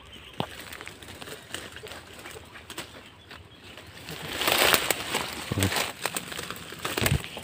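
Footsteps and rustling through dense leafy undergrowth: twigs crackle and snap underfoot, and a loud brushing of leaves comes about halfway through, with a couple of dull thuds near the end.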